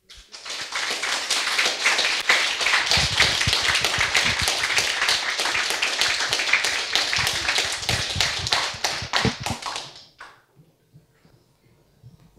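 Audience applauding: dense clapping that dies away about ten seconds in.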